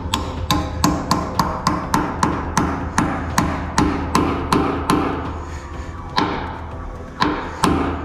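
Hammer blows driving a greased pin bolt into a VW T4 door hinge's new copper bushing, about three blows a second, pausing briefly near the end before a few more. The pin is a tight fit in the bushing.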